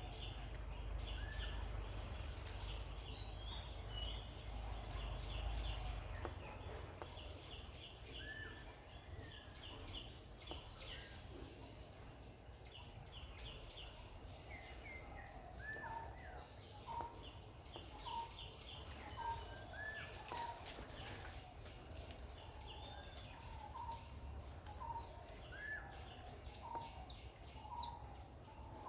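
Outdoor ambience of a steady high-pitched insect drone with birds chirping, and a short call repeated about once a second through the second half.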